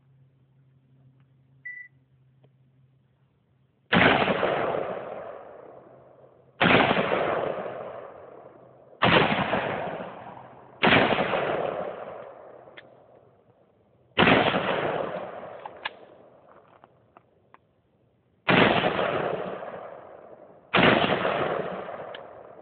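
Bushmaster Patrolman AR-15-style rifle fired in slow single shots, seven reports spaced two to four seconds apart, each followed by a long fading echo.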